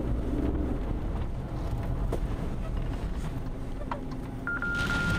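Steady low rumble of a car heard from inside the cabin, with wind noise on the microphone; a steady high beep lasts about a second near the end.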